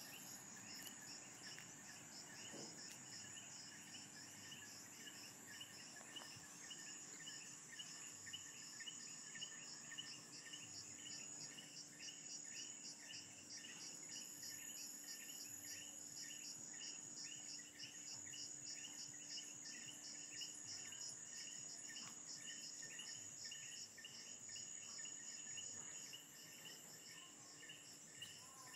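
Faint night chorus of insects and other small nocturnal animals: a continuous high-pitched trill with many short chirps repeating a few times a second beneath it. A faint steady low hum runs underneath.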